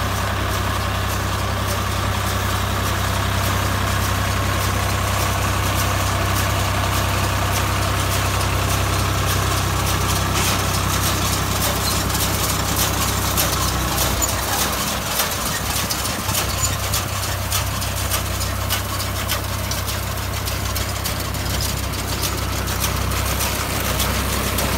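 Swaraj 744 XM tractor's diesel engine running steadily, with many clicks on top. The low engine hum weakens for a couple of seconds about halfway through, then comes back.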